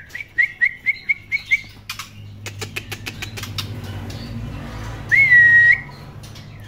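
Young white-rumped shama calling: a quick run of about seven short chirps, then sharp clicks. About five seconds in comes one loud drawn-out whistle that rises and then holds level. A faint steady low hum runs underneath.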